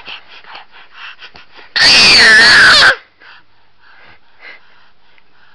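An infant's excited scream about two seconds in: one very loud, wavering, high-pitched cry lasting about a second, near the top of the recording's range. Before it come quick, breathy excited huffs, and after it only faint breathing.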